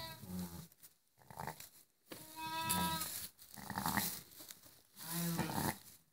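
Sheep bleating, about five separate calls with short pauses between them. The longest is a held bleat of about a second in the middle.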